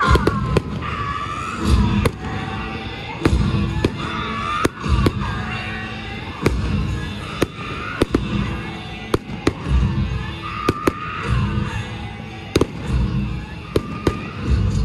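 Fireworks bursting overhead in an irregular string of sharp bangs, sometimes several a second, over music playing for the display.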